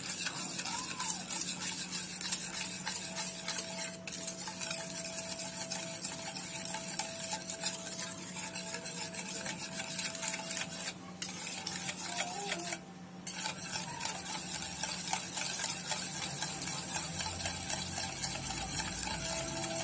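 Wire balloon whisk beating fresh cream and powdered sugar in a bowl: a rapid, continuous swish and scrape of the wires through the liquid and against the bowl, pausing briefly about thirteen seconds in.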